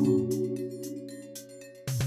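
Background music: a held chord slowly fading away, then a new phrase coming in sharply near the end.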